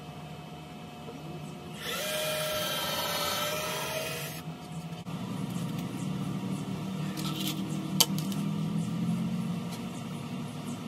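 Cordless drill running on a plywood drawer box: the motor whines for about two and a half seconds, starting about two seconds in. After it, a low rumble carries on, with a single sharp click about eight seconds in.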